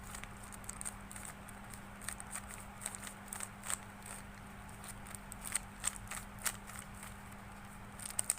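A 3x3 Rubik's cube being scrambled by hand: its plastic layers are turned quickly, making an irregular string of sharp clicks and clacks. A faint steady low hum sits underneath.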